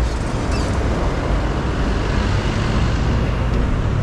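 A car driving through city streets: steady road and traffic noise, a constant low rumble under an even hiss.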